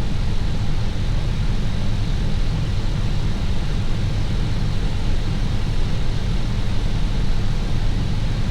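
Steady flight-deck noise of an Airbus A321 on final approach: a constant low rumble of airflow and engines, with a faint steady high whine over it.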